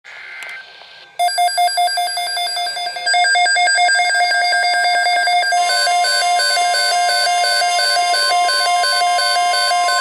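Midland NOAA weather alert radios sounding their alert alarms for a severe thunderstorm watch. Rapid electronic beeping starts about a second in and thickens as more alarms join. About five and a half seconds in, a steady high tone and a warbling beep pattern are added.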